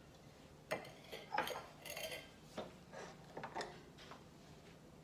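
A run of light metal clinks and knocks over about three seconds as stainless-steel espresso gear is handled on and around an espresso machine.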